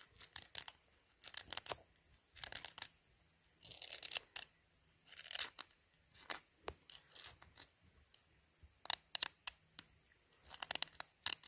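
Hacksaw-blade striker scraped against a magnesium fire starter with a ferro rod, in short rasping strokes that come in clusters every second or two, scraping magnesium and throwing sparks into pine-needle tinder.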